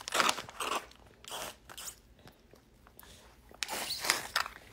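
Close, irregular crunching and rustling noises right at the microphone: several short bursts, a quiet gap of about a second and a half, then a longer stretch near the end.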